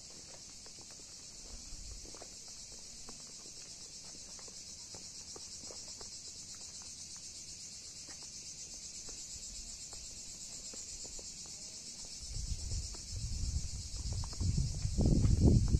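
Insects chirring steadily in a high, finely pulsing chorus. From about twelve seconds in, an irregular low rumbling noise joins and is loudest near the end.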